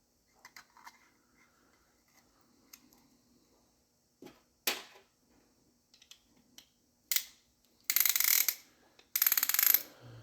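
A few light metal clinks and knocks, then two quick runs of rapid ratchet clicking near the end: a piston ring compressor being ratcheted tight around a piston's rings.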